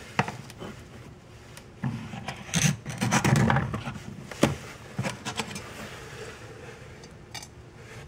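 The glass-breaker tip of a Sanrenmu 7056 folding knife scraping across a pane of glass as it scores a circle: gritty rubbing strokes with a few sharp clicks, the sharpest about four and a half seconds in.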